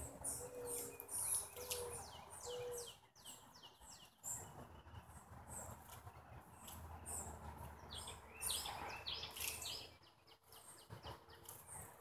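Songbirds calling: runs of quick, high, downward-slurred chirps, repeated in two bouts, with a few short, low, hooting notes in the first few seconds.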